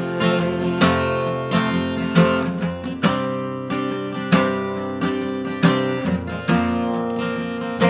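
Acoustic guitar strummed in a steady rhythm between sung lines of a country song, chords ringing on with a fresh strum every half second or so.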